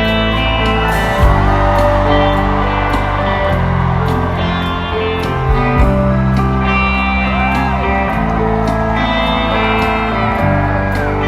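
Live rock band playing an instrumental jam: electric guitar with bent, sliding notes over sustained bass and steady drum and cymbal hits.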